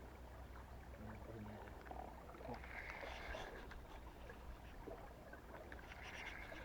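Faint river ambience around a boat sitting on the water: a low steady hum under soft water noise, with two faint, brief higher sounds a few seconds apart.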